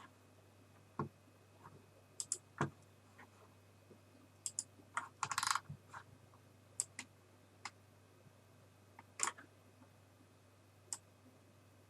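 Computer keyboard keys clicking in short, sparse strokes with pauses between them, including a quick run of keystrokes about five seconds in.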